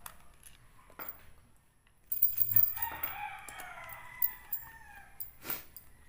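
A rooster crows once: one long call, beginning about two seconds in and sinking in pitch as it fades near the end. Scattered clicks from a screwdriver driving the screws of an alarm padlock's battery cover sound around it.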